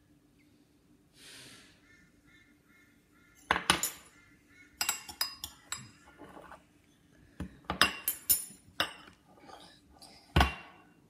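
Metal spoon clinking and scraping against a ceramic bowl while stirring jelly crystals, in a run of irregular sharp knocks after a short soft hiss at the start.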